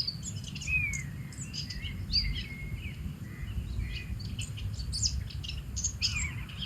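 Several birds singing and chirping at once, a busy run of short calls and whistles, over a steady low rumble.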